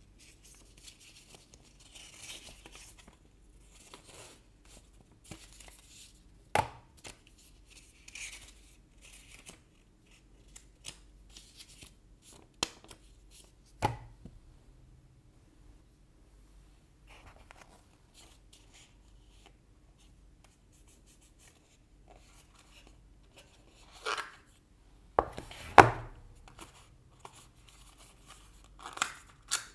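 Paper and cardboard packaging handled up close: pages and card rustling, with sharp taps as pieces are set down or pressed. The loudest taps come in a cluster a little over 24 seconds in.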